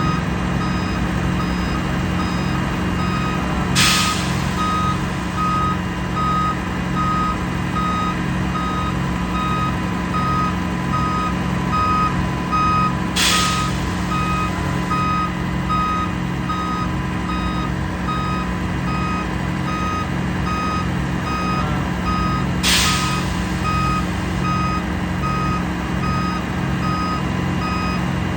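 Concrete pump running, its engine and pumping giving a steady low pulsing rhythm, with a loud hissing burst about every nine and a half seconds, three times in all. A warning alarm beeps repeatedly from about three seconds in.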